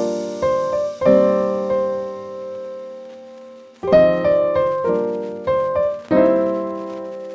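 Background piano music: chords struck and left to ring and die away, a pause of about a second near the middle, then a few more chords.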